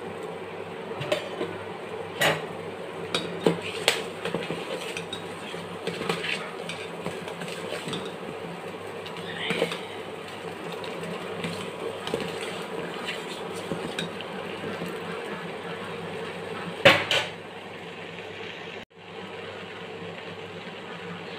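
Metal kitchen utensils clinking and knocking against a pot, in scattered single strikes with the loudest clank about 17 seconds in, over a steady background hum.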